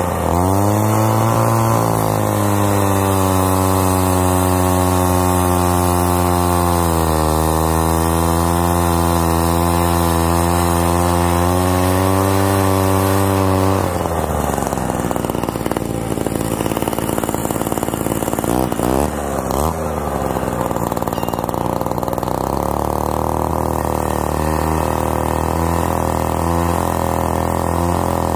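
Partner K12 cut-off saw's 90cc two-stroke engine running, revving up at the start and then holding a high, steady note. About halfway through the steady note breaks up into a rough, wavering sound for several seconds before it settles back into steady running.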